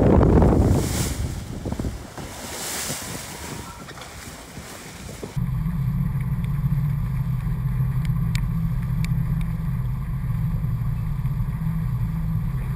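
Wind buffeting the microphone over the sound of open-sea water, with gusts about a second and about three seconds in. From about five seconds in this gives way abruptly to the steady low hum of the sailboat's inboard engine, motoring with the sails down.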